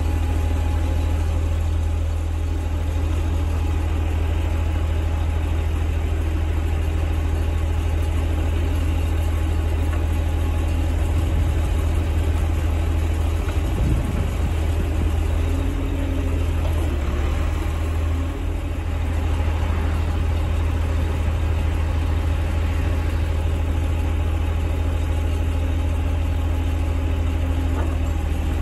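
Volvo 480 truck's diesel engine running steadily, driving the hydraulics of its truck-mounted knuckle-boom crane as the crane folds up. A faint higher tone comes and goes over the engine hum in the second half.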